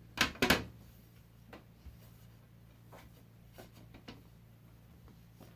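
Tempered glass side panel of a desktop PC case being fitted back on: two sharp knocks close together as the glass meets the case, then a few light taps and clicks as it is settled into place.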